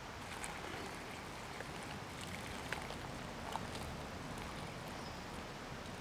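Water poured from a small camping pot into a freeze-dried meal pouch: a steady trickle, with a few light clicks.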